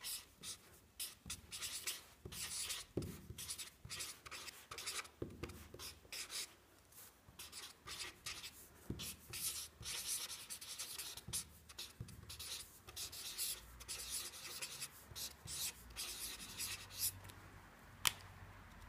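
Broad felt-tip marker scratching across paper in a run of short strokes as large letters are written by hand, with a single sharp click near the end.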